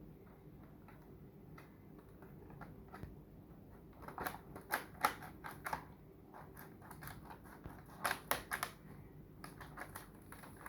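Scissors cutting open toy packaging: clusters of sharp snips and clicks, a run of them about four seconds in and another around eight seconds in.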